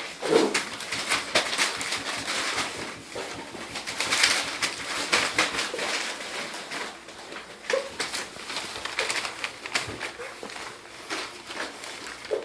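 A litter of seven-week-old puppies playing and squabbling: short whines and grumbling calls over a busy scuffle full of small clicks.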